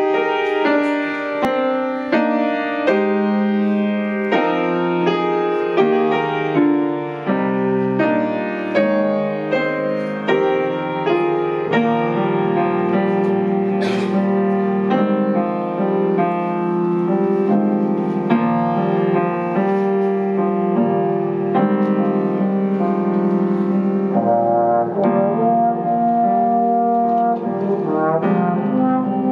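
A tenor trombone playing a solo melody of sustained, changing notes, accompanied by a grand piano.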